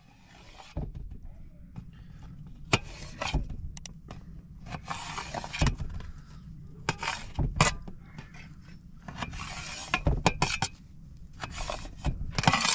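Kitchen utensils knocking and scraping against dishes and pans: a scatter of sharp clinks and knocks with a few short scraping passes.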